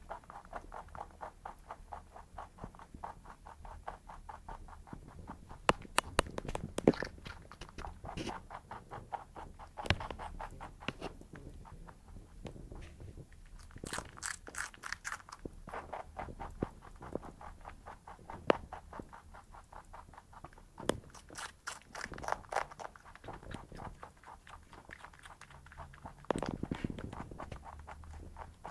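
Pet rabbit making long runs of rapid, fine clicking noises, louder in bursts about six, fourteen and twenty-two seconds in, with a low thud near the end.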